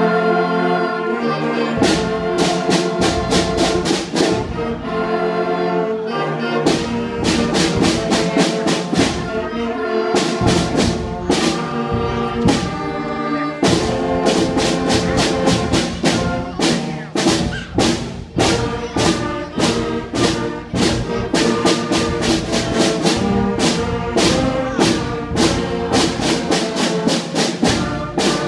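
Brass-led music, with trumpets and trombones playing over a steady drum beat that comes in about two seconds in.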